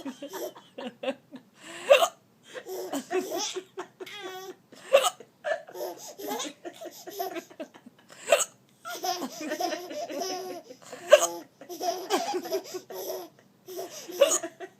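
An adult hiccupping, a short sharp hiccup about every three seconds, while a baby laughs and squeals at it.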